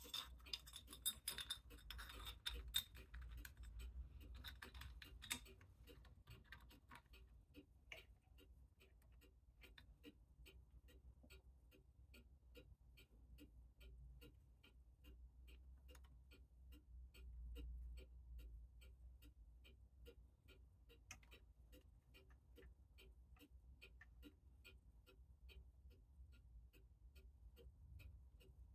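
For the first few seconds, small metal parts of a mainspring winder and barrel clink and scrape with a light ringing. After that comes faint, steady, evenly spaced ticking, several ticks a second.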